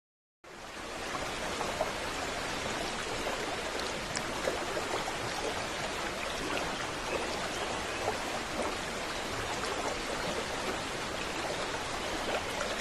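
Water making a steady rushing noise with small scattered splashes and drips. It fades in out of dead silence about half a second in.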